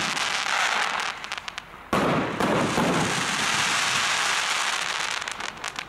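Jorge Silver Coco to Red multi-shot firework cake firing: crackling from one burst dies away, then a new shell bursts about two seconds in and its silver palm stars crackle densely for several seconds, fading near the end.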